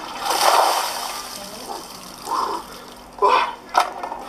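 A bucket of ice water dumped over a man, splashing down onto the pavement in one loud rush that fades over about a second and a half. A few short, sharp sounds follow near the end.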